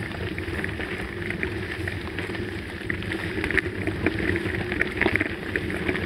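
Mountain bike rolling over a gravel dirt road: knobby tyres crunching on loose stones in a stream of small ticks and rattles over a steady low rumble.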